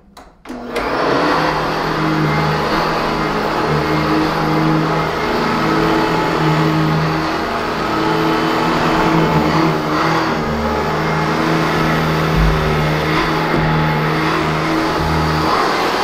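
Sanitaire S649 commercial upright vacuum switched on with a click about half a second in, then its motor and metal-beater brush roll running steadily, with a faint high whine, as it is pushed across carpet.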